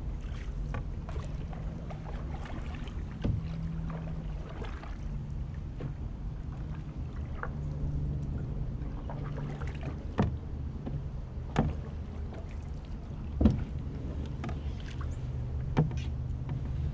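Canoe being paddled: paddle strokes in the water over a steady low rumble, with a few sharp knocks on the canoe, the loudest one later on.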